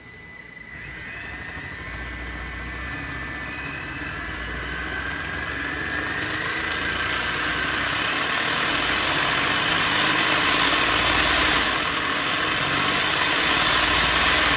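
Kyosho Mini-Z all-wheel-drive RC car run at full throttle on a 3D-printed roller dyno: its small electric motor and drivetrain whine while the street tires spin the plastic rollers. The whirring grows steadily louder through the pass, with a brief dip about twelve seconds in.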